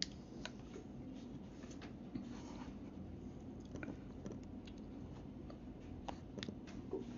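A person chewing a mouthful of noodles with the mouth closed, with small wet clicks and smacks scattered through it and a sharper click right at the start.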